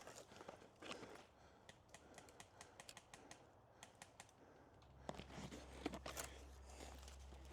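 Faint, irregular small clicks and ticks, with a low steady hum coming in about five seconds in.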